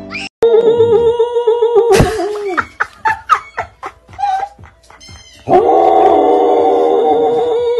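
Samoyed howling in long held notes: one from about half a second in lasting some two seconds, and another starting about five and a half seconds in that carries on. A few sharp knocks come in between.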